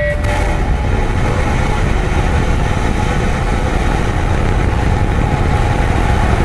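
Steady, loud roar of the Starship SN8 prototype's Raptor rocket engines firing, a deep rumble under a rushing hiss.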